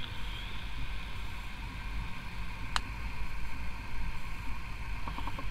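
Steady low hiss and hum, with a single sharp click a little before the middle and a short run of quick ticks near the end.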